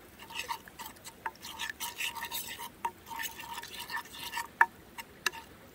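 A metal fork stirring boiled, chopped nettles and flour in a frying pan, scraping and clicking against the pan in quick, repeated strokes, with two sharper clinks near the end.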